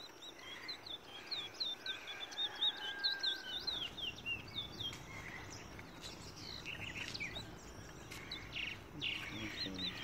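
Caged towa-towa seed finch singing a fast run of short, high, sliding chirps, densest in the first few seconds and more scattered afterwards.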